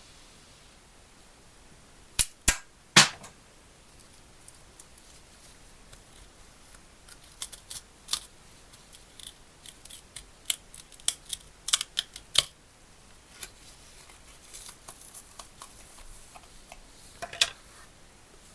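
Sharp, short clicks and taps of small hard parts and hand tools being handled at a workbench: three loud clicks about two seconds in, a scattered run of lighter ticks in the middle, and another click near the end.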